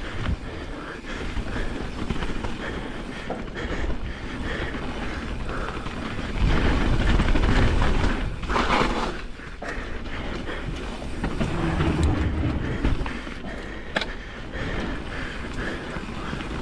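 Pivot Firebird enduro mountain bike riding downhill on a dirt singletrack: tyres rumbling over the trail and the bike rattling. It gets louder and heavier for a few seconds around the middle, with a few sharp knocks.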